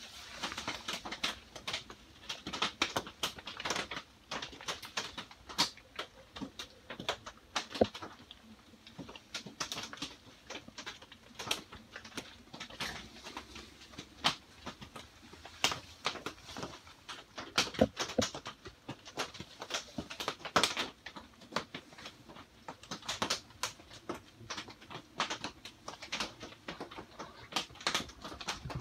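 Rain drumming on the translucent greenhouse panels, an irregular patter of sharp drop taps, some much louder than others.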